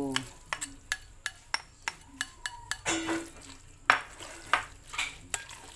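Metal spoon clinking and scraping against a glass bowl while stirring sago pearls and gelatin cubes: irregular sharp clinks about twice a second, the loudest about four seconds in.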